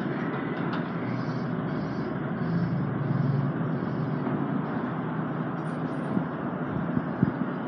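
An R160 subway train running away along the elevated steel structure: a steady rumble, with faint regular ticking about every half second in the first half.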